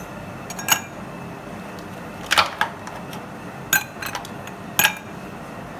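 Ice cubes dropped one at a time into two glass tumblers, clinking against the glass. About five sharp clinks, spaced a second or so apart, the loudest about two and a half seconds in.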